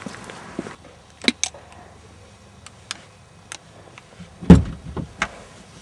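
Car door heard from inside the cabin: a few light clicks, then one heavy thump about four and a half seconds in, with smaller knocks just after, as the driver's door is opened and shut.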